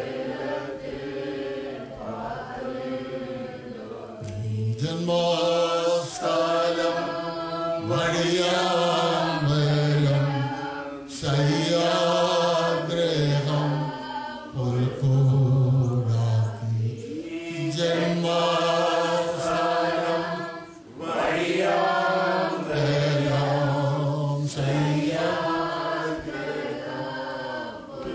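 A man's voice slowly singing a Malayalam Christian hymn, unaccompanied, holding long notes and gliding between them.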